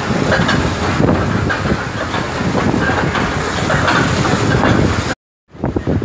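Choppy sea water splashing, with wind rushing on the phone's microphone. The sound cuts out for a moment near the end, then resumes.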